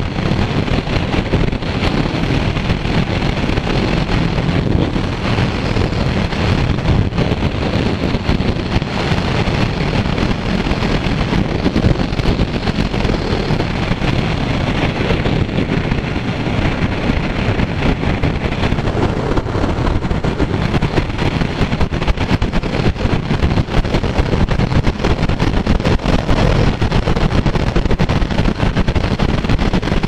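Kawasaki Z900 motorcycle riding along at speed: wind buffeting the microphone over the steady running of its inline-four engine.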